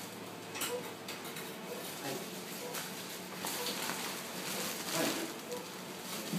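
Light clatter and rustle of instruments and drapes being handled, louder about five seconds in, over a steady equipment hum and a patient monitor's faint short beep about once a second with the heartbeat.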